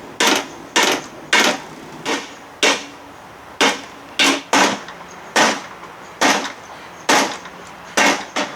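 Hammer blows, about a dozen sharp strikes at an uneven pace of roughly one or two a second, knocking the seized lower unit gear case of a 1968 6 hp Evinrude outboard loose.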